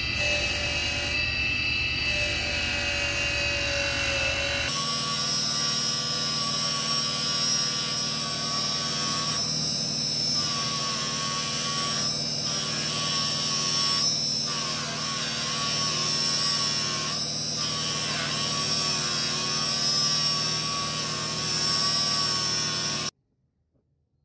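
Electric bench grinder running with a buffing wheel, a steel dagger blade held against the spinning buff to polish it. A steady whine whose tones waver slightly as the blade works, with a change in tone about five seconds in, cutting off suddenly near the end.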